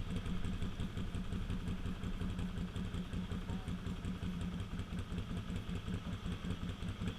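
ATV engine running steadily with a fast pulsing beat, its pitch holding even with no revving.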